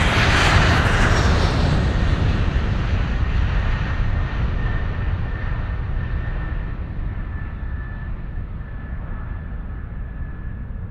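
Airplane cabin noise: a steady low rumble of engines and rushing air that slowly grows quieter and duller, with a faint steady whine joining about four seconds in.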